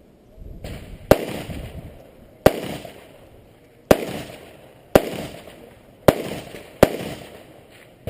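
Six rifle shots from an AR-15-style rifle, fired about one every second or so, the last two a little closer together. Each shot is followed by a trailing echo.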